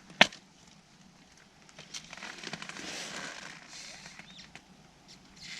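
A person blowing hard into the valve of an inflatable air bed by mouth, a breathy hiss lasting about two seconds, after a sharp click about a quarter second in. The air goes nowhere because he is blowing into the deflate valve.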